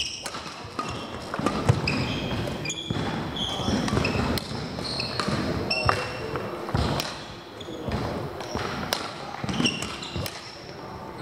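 Badminton rally: sharp racket strikes on the shuttlecock mixed with court shoes squeaking and footsteps thudding on the hall floor, echoing in a large sports hall.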